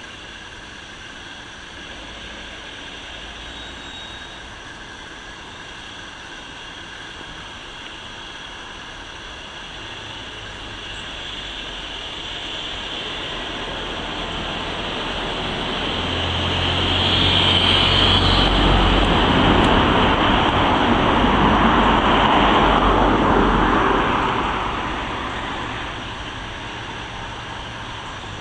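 Steam train passing on the rails: the sound grows from about a third of the way in, is loudest with a heavy low rumble about two-thirds of the way through, then fades.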